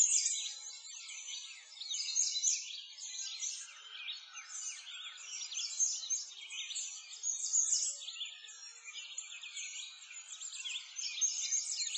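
A dense chorus of small birds chirping and twittering at once, many quick high chirps and trills overlapping without a break.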